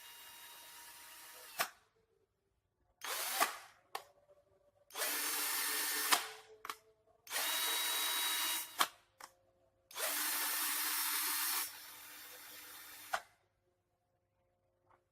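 Doliz BD618 21 V cordless drill running in short bursts of one to two seconds, started and stopped about four times, with sharp clicks between the runs.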